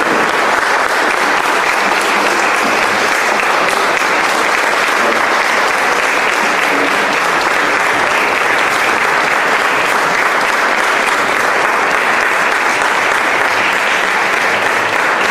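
Audience applauding, steady and unbroken, at the close of a piano piece.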